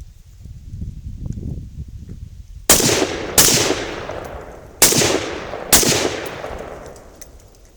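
Four shots from a Zastava ZPAP M85 AK pistol in 5.56/.223, fired semi-automatic at an uneven pace, the first two and last two closer together, each with a long echoing tail. A low rumbling noise comes before the first shot.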